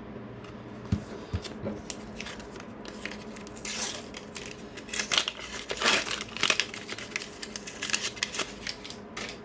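A Panini sticker pack's wrapper being torn open and crinkled, with the stickers being handled: a few soft knocks, then a run of rustles and crackles.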